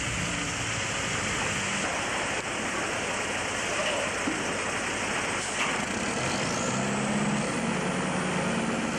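A motor vehicle engine running over a steady rushing noise. The engine's low hum fades from about two seconds in and comes back strongly near the end, when a faint high whine also rises.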